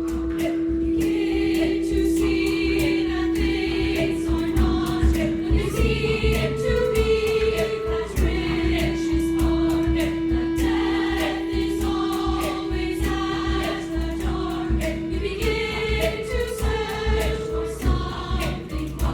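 Music: a girls' choir singing short phrases over a long held note that steps up and back down twice, with a low pulsing beat underneath.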